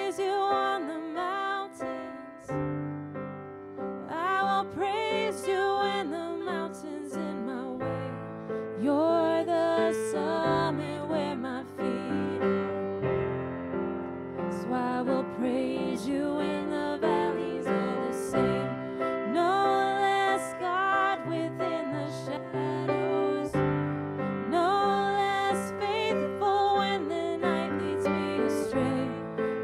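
A slow worship song: a voice sings the melody over sustained piano chords.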